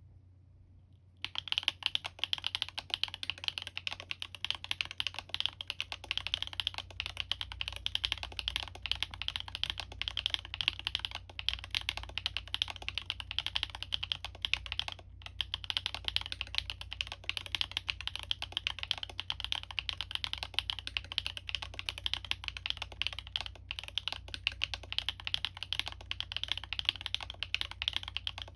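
Fast, continuous typing on a Libra Mini custom mechanical keyboard with stock Gateron x Siliworks Type R switches, an aluminium plate and PBT keycaps. The typing starts about a second in and breaks off briefly about halfway through.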